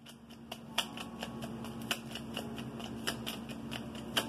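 A deck of tarot cards shuffled by hand, hand over hand: a steady run of small, irregular clicks and flicks as the cards slide over each other.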